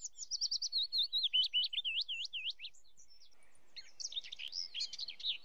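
Small bird singing: a quick run of high, swooping chirps for about two and a half seconds, then after a short pause a second, busier burst of chirps.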